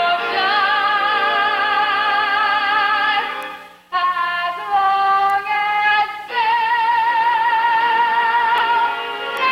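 A woman singing in full-voiced musical-theatre style, holding long notes with a wide vibrato. She breaks off briefly about three and a half seconds in, then sings on into a long held note from about six seconds.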